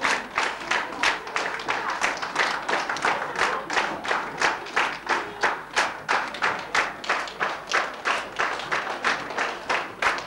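Many people clapping in unison to a steady beat, about three to four claps a second.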